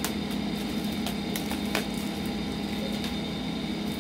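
A steady machine hum, with several sharp clicks and taps from plastic CD cases being handled and picked up.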